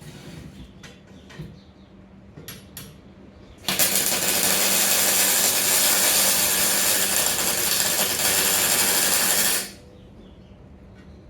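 Electric welding arc crackling steadily for about six seconds as a weld is run, starting and stopping abruptly, after a few light clicks from handling the work.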